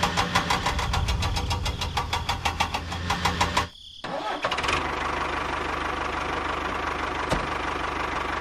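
A small motor running with a rhythmic chugging of about seven or eight pulses a second. After a brief drop about four seconds in, it gives way to a steadier running whir.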